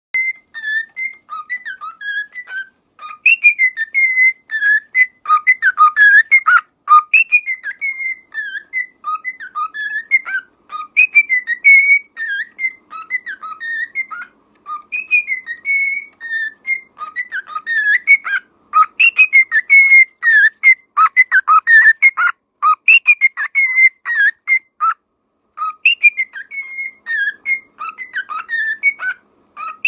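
Pet bird whistling and chirping in a fast, continuous warble of short gliding notes, with a few brief pauses.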